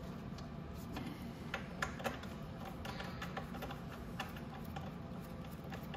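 Irregular light metallic clicks and taps of a hand driver and bolts as body bolts are fitted into an electric ATV's plastic body, with a few sharper clicks about one and a half to two seconds in, over a low steady hum.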